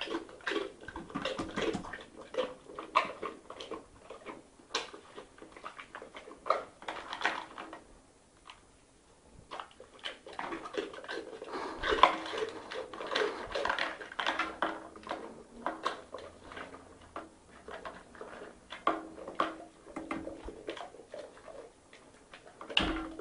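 A dog eating, with wet smacking and chewing noises in irregular bursts. A small plastic tub clatters and knocks on a glass tabletop as it is handled.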